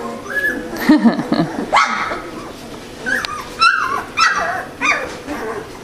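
Three-week-old poodle puppies yipping and whimpering as they play, a string of short high calls that slide up and down in pitch.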